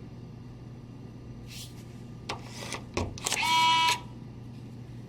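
A few sharp clicks, then a single electronic beep lasting about half a second, over a low steady hum.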